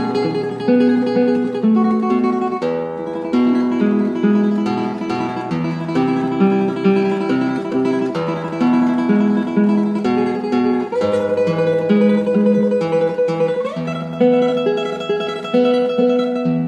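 Background music: an acoustic guitar playing quick plucked notes and chords.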